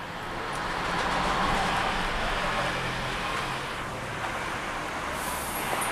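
Road traffic: a vehicle passing, a rushing noise that swells over the first second or so and then slowly fades.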